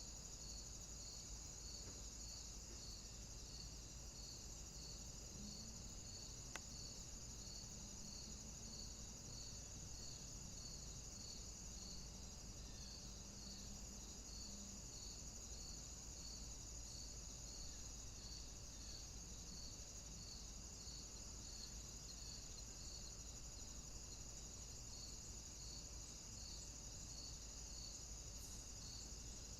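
Crickets chirping: a faint steady high trill with a regular chirp pulsing about once a second, and a single faint click about six seconds in.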